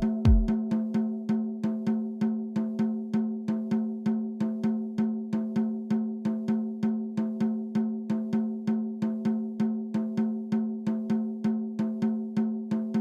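Electronic music: a steady sustained synth chord under an even, rapid percussion beat of about four hits a second. A deep kick drum drops out about half a second in.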